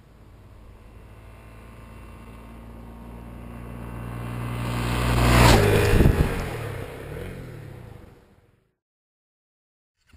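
Dirt bike engine approaching and passing close by, growing louder to a peak about five and a half seconds in, then dropping in pitch and fading as it rides away. The sound cuts out about eight and a half seconds in.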